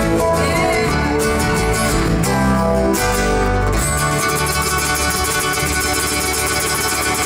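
Live acoustic band playing an instrumental passage: ukulele, acoustic guitar and electric bass, closing on long held notes over the last few seconds.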